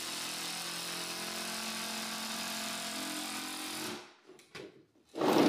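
Cordless drill motor running steadily at one speed as it drives a screw into the plywood subfloor, stopping about four seconds in, followed by a couple of faint clicks.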